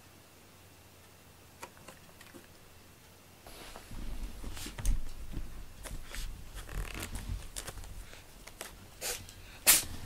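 Quiet room tone at first. A few seconds in, irregular rustling and scraping begins, with clicks and low bumps, as a cat steps about in an open cardboard box. Several loud, short noises come near the end.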